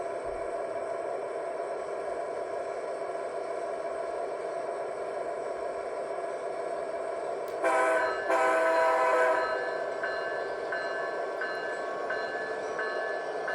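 Sound decoder of a Walthers HO scale GP7 model diesel playing through its small speaker: a steady diesel engine hum, then about eight seconds in two horn blasts, a short one and a longer one. After the horn the bell rings, about one stroke every 0.7 seconds.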